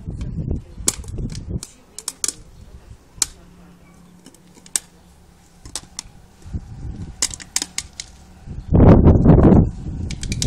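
A dog chewing on an aluminium beer can: irregular sharp clicks and crackles of teeth on the thin metal. A loud low rumble comes in for about a second near the end.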